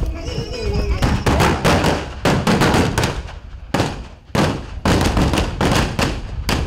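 Gunfire in rapid bursts, several shots a second, starting about a second in, with a short break near the middle.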